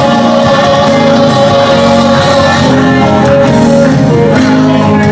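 Loud music with held pitched notes, likely including singing.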